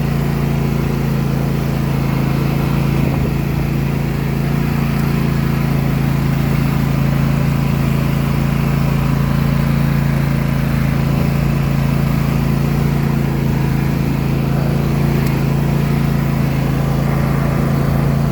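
Craftsman T260 riding lawn tractor's engine running steadily at an even pitch.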